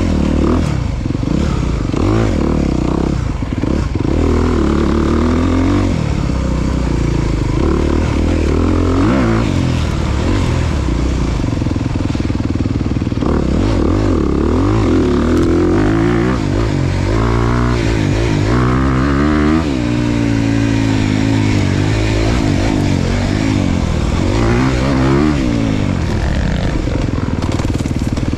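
Off-road dirt bike engine revving hard, its pitch climbing and dropping again and again as it accelerates and shifts gear.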